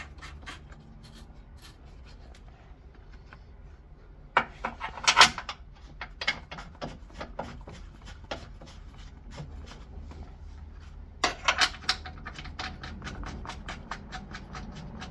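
Metal clicking and clinking as bolts are put back into a car's front subframe, in quick runs of several clicks a second, the loudest cluster about five seconds in.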